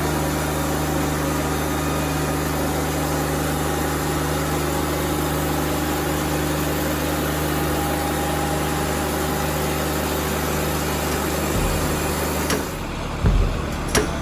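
Wood-Mizer LT40 band sawmill running steadily, its engine humming under the hiss of the blade sawing through a pine cant. Near the end the hiss drops off and a few sharp knocks follow.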